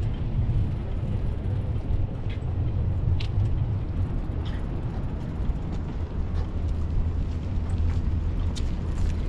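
A steady low outdoor rumble with a few short, faint clicks scattered through it.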